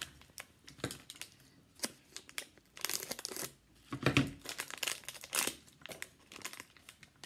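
Crinkly plastic wrapper of a Walkers mini shortbread packet rustling and tearing open in irregular bursts of crackle, loudest and busiest in the middle.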